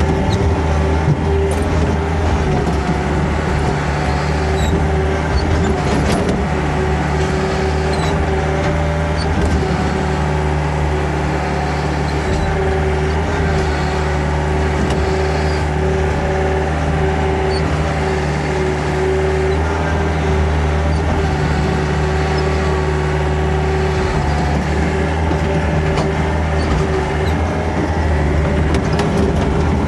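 Excavator's diesel engine running steadily while it works, with a few short knocks about a second in and again around six seconds.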